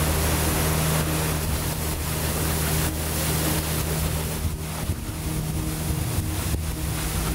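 Motorboat engine running steadily at speed, a constant low hum under the rush of water and wind.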